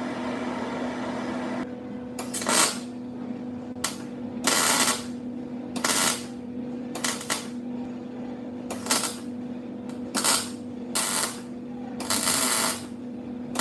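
Electric welder arc crackling in about ten short, irregular bursts over a steady electrical hum, as a washer and nut are welded onto the stub of a broken bolt.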